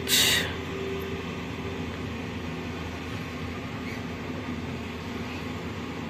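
Excavator's diesel engine running steadily, heard from inside the operator's cab. A brief hiss at the very start.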